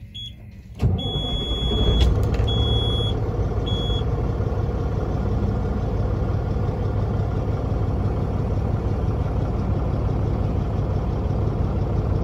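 Caterpillar C15 inline-six diesel catching about a second in and settling into a steady idle, heard from inside the cab; the engine is warm but not yet at full operating temperature. A high-pitched dash warning buzzer beeps in a few short pulses during the first few seconds as it starts.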